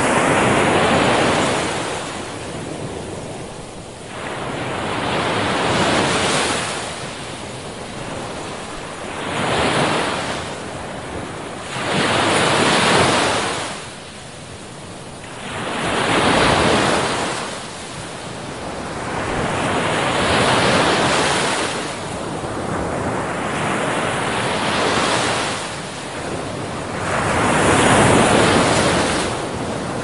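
Heavy sea surf: big waves breaking one after another, each a swelling rush of noise that dies back into a lull, about every three to four seconds.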